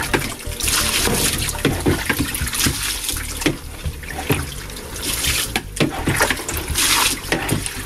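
Water splashing and trickling in bursts as peaches are washed by gloved hands in a plastic colander, with a few soft knocks of the fruit against the colander.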